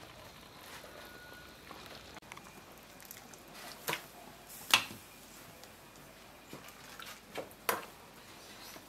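Metal tongs clinking against a stainless steel pot and colander as boiled pork intestines are lifted out and dropped in, with soft wet squishes. A handful of sharp clinks, the loudest about halfway through.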